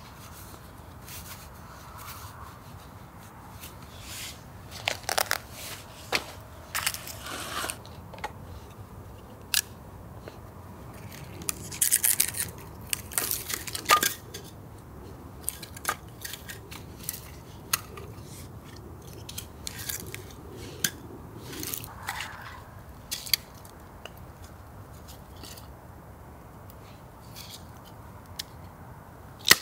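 Irregular crunches, clicks and scrapes of something being handled close by, coming in short clusters with quieter gaps between them.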